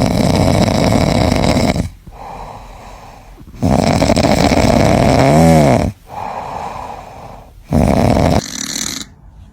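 Sleeping cat snoring: three loud, noisy snores about four seconds apart, with quieter out-breaths between them. The middle snore ends in a brief whistle that rises and falls in pitch.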